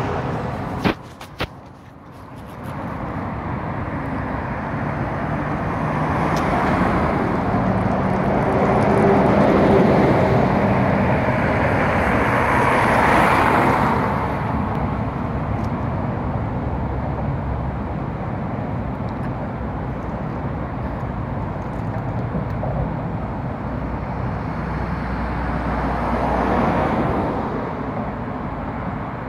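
Road traffic: vehicles passing by on the road, swelling to a peak about thirteen seconds in and again near the end. A few sharp knocks about a second in.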